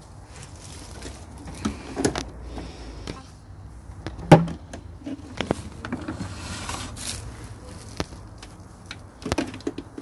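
Irregular hollow plastic knocks and clatter from Numatic Henry vacuum cleaners being handled, their carry handles and bodies knocked about while the machines are switched off. One sharp knock about four seconds in is the loudest, with smaller clusters of clatter near the start and near the end.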